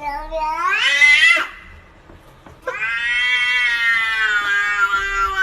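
A cat yowling twice: a short call that rises in pitch, then about a second later a long drawn-out yowl lasting about three seconds.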